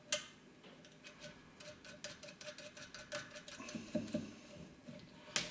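Faint clicks and ticks of small metal parts being handled as a rotary selector switch is fitted through a metal front panel, with a run of quick ticks in the middle and a sharper click near the end.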